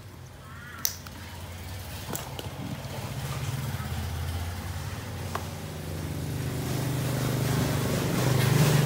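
A motor engine running steadily and growing gradually louder, loudest near the end, with a sharp click about a second in.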